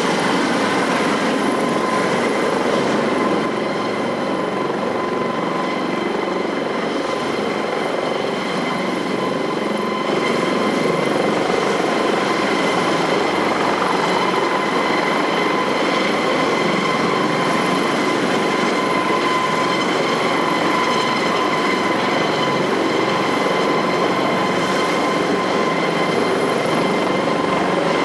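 AS365 Dauphin twin-turbine helicopter running close by: a steady high turbine whine over a loud, even rushing noise.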